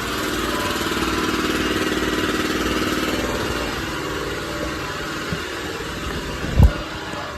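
A motor running steadily, a little louder in the first few seconds and easing off after, with a single thump about six and a half seconds in.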